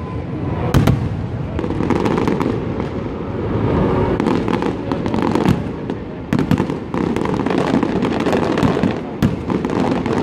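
Aerial fireworks display going off in quick succession: a dense rumble of shell bursts with many sharp cracks on top.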